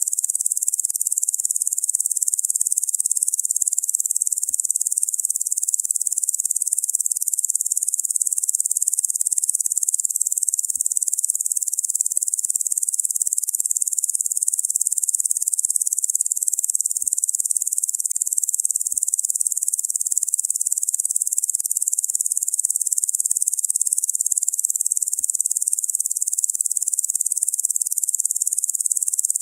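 Locusts stridulating: a steady, high-pitched insect buzz that holds the same level throughout, with nothing in the low end.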